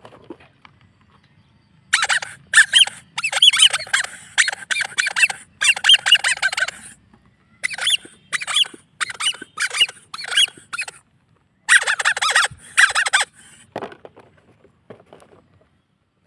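A plastic bag being handled and torn open, squeaking and crinkling in quick bursts from about two seconds in until near the end, with short breaks between.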